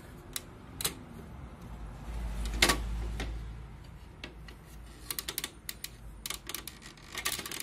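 Clicks and rattles of plastic as the clear plastic paper guide on an Epson LQ-2190 dot matrix printer is handled. There is one louder snap about two and a half seconds in, and a run of small quick clicks near the end.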